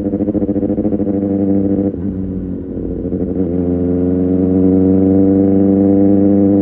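Kawasaki ZX-6R inline-four with an Arrow Pro Race exhaust, heard while riding. Its steady note breaks into a rapid stuttering burble for about two seconds, as on a closed throttle, then dips. About three and a half seconds in, the note builds back up and settles into a steady run again.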